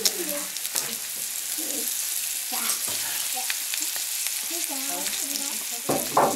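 Flour-dredged snowshoe hare pieces frying in a cast iron skillet: a steady sizzle, with a few light clicks of a fork against the pan.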